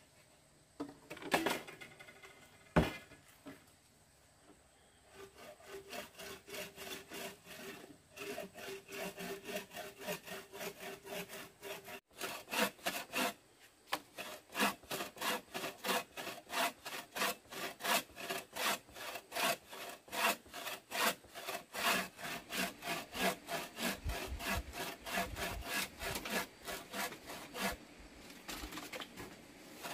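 Hand saw cutting wood in steady back-and-forth strokes, about three to four a second, after a couple of sharp knocks near the start.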